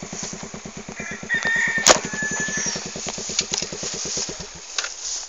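Motorcycle engine idling with a rapid, even beat, then cut off about four and a half seconds in. A rooster crows about a second in, and a single sharp click sounds just before two seconds.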